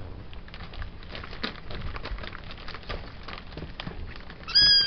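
Irregular light scratching and rustling from a Bengal-cross-Persian kitten moving about on a sisal scratching post and newspaper. Near the end the kitten gives one short, high meow, the loudest sound.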